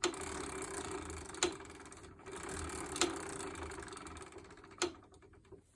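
Rear wheel drive of a Honda NSR50 turning: fast, steady ratchet-like ticking with a sharp, louder click about every second and a half, slowing and dying away near the end. The repeating click is the abnormal rear-wheel noise being traced.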